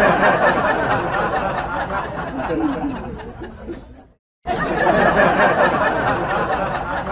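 A crowd of people laughing and chattering all at once, with no single voice standing out. It cuts out abruptly for a moment about four seconds in, then carries on.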